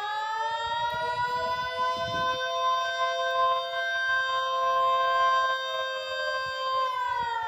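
Outdoor civil defense warning siren sounding a chord of several tones in a wavering attack signal. Its pitch climbs at the start, holds steady, then begins to fall about seven seconds in.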